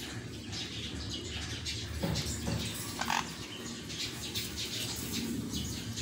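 Caged sun conures making a few short, soft chirps and light clicks, over a steady low background hum.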